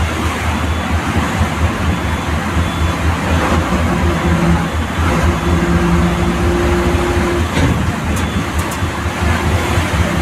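Diesel engine and road noise of a state transport bus, heard from inside the cab: a steady, pulsing low drone with a dense rushing haze above it. A steady hum stands out for a few seconds in the middle.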